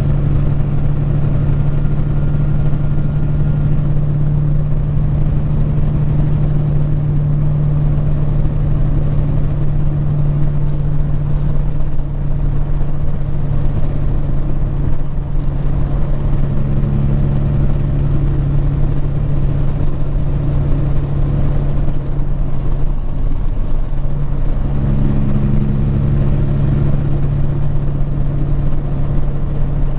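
Peterbilt 379 semi truck heard from the cab while driving at road speed: a steady low diesel engine drone with road noise. A faint high whine rises and falls three times as the engine note strengthens.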